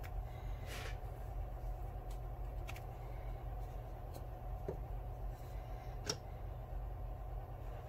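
A few light clicks and taps from hands taking apart a small mold box and handling a silicone mold, over a steady low hum. The sharpest click comes about six seconds in.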